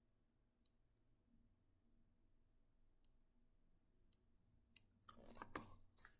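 Near silence with a few faint ticks. About five seconds in there is a brief rustle and handling noise as a hardcover picture book is lowered from being held up.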